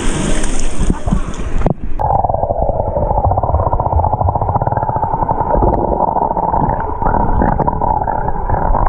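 Pool water splashing at the surface. Then, a little under two seconds in, the microphone goes under and the sound turns abruptly muffled: a steady underwater hum with a fast buzzing grain over a low rumble.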